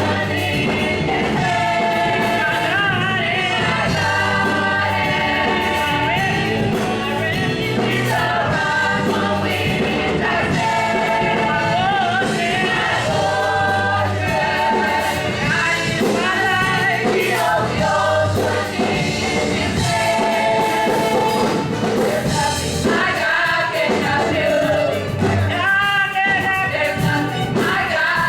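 Gospel praise-and-worship music: a choir or group of singers with a live band, singing steadily throughout.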